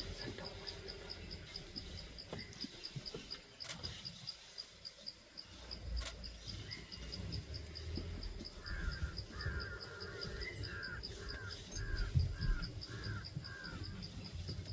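An insect chirps steadily in an even, high-pitched rhythm of about three to four pulses a second. About halfway through, a bird calls a run of about eight short repeated notes, over a low rumble.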